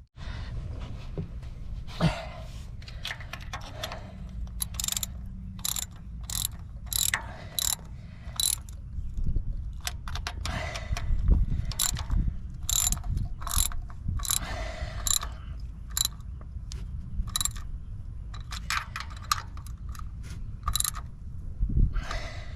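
Hand ratchet wrench clicking in runs of short strokes as bolts on the oil filter housing are snugged down, over a steady low rumble.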